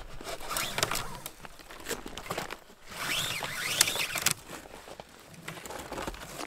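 Snowshoes crunching and shuffling in snow, with rustling of clothing and the sled's tow ropes as they are handled, in short uneven bursts.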